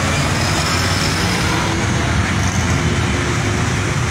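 Steady traffic noise: the low rumble of vehicle engines on a crowded road, with a faint steady tone through the middle.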